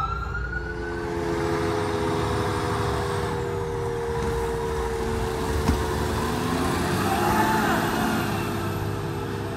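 Fire truck's diesel engine running steadily as the rig pulls out, after a siren wail trails off in the first second.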